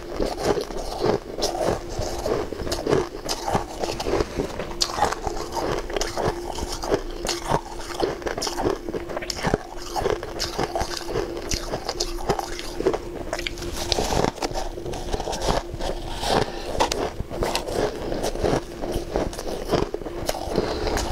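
Crushed ice being bitten and chewed: many sharp crunches and crackles, with squeaky crumbling as lumps of ice are squeezed and scooped by hand from a metal bowl. A steady hum runs underneath.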